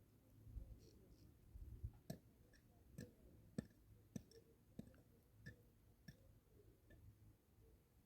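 Faint, irregular light clicks and knocks, roughly one or two a second, over near silence.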